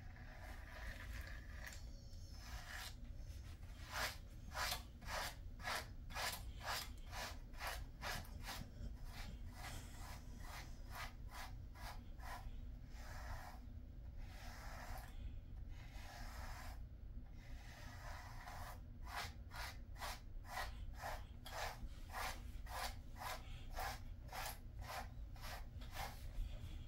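Pet slicker brush combing through a Jindo dog's thick coat, making repeated scratchy brush strokes at about three a second in runs with short pauses between them.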